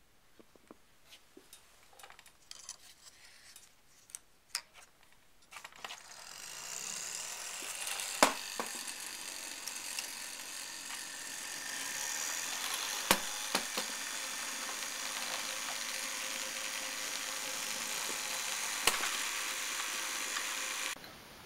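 Small electric motor of a scratch-built wooden toy car running with a steady whir, starting about six seconds in after scattered light clicks and knocks, with a few sharp knocks while it runs.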